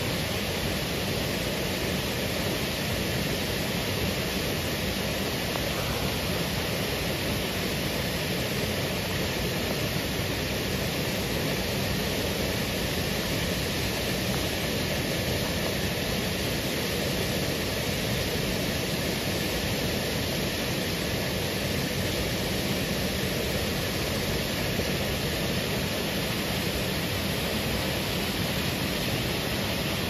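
Water falling over a low stone dam: a steady, even rush that holds unchanged throughout.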